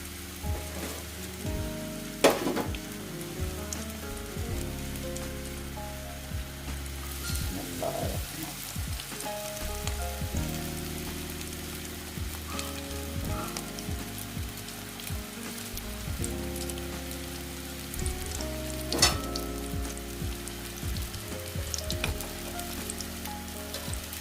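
Breaded chicken-and-potato drumsticks frying in oil in a kadhai on low heat: a steady sizzle, with a sharp knock about two seconds in and another near the end.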